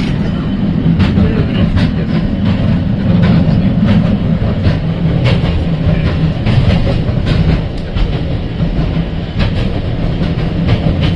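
Heritage tram running along its track, heard from on board: a steady low rumble from the wheels, with irregular clicks and clacks as the wheels cross rail joints.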